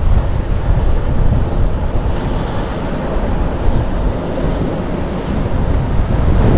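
Wind buffeting the microphone in a steady low rumble, over the rush of the open sea.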